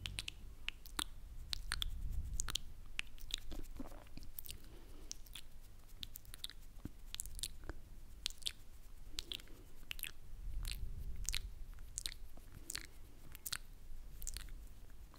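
Close-miked wet mouth sounds: irregular lip smacks and tongue clicks, many short sharp snaps at an uneven pace, with a couple of stretches of low rumble on the microphone.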